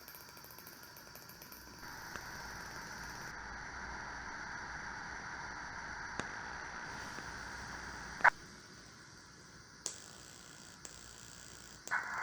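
Steam sound effects from a model steam locomotive's DCC sound decoder: a steady hiss for several seconds, then a sharp clank about eight seconds in and a lighter click a second and a half later.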